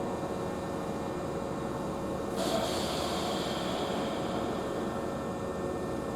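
Hankyu Kyoto Line electric train running, a steady rumble with a faint hum, joined about two and a half seconds in by a higher steady hiss.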